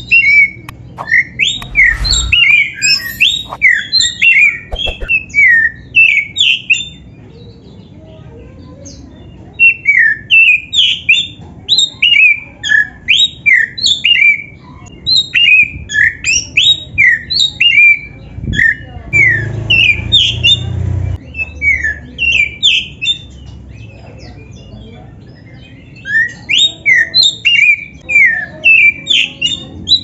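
Black-breasted oriental magpie-robin (kacer) singing a loud, rapid song of varied chirps and whistles, in three long bouts with short pauses between.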